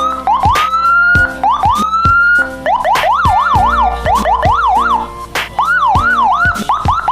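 Electronic escort siren with a Senken-style tone module, switching between patterns: short rising whoops, then a fast up-and-down yelp, then quick rise-and-fall swoops. Short clicks come between the tone changes.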